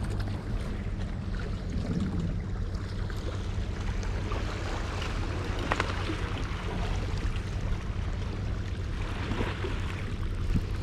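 Baitcasting reel clicking at scattered moments against steady wind and water noise, the strongest click about six seconds in. This is the clicking heard on long casts, which the owner suspects is a level-winder fault.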